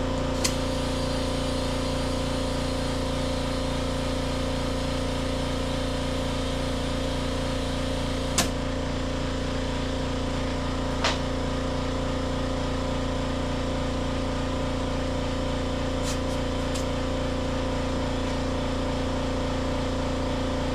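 Air compressor running with a steady hum while a tire is inflated, with a few sharp clicks over it.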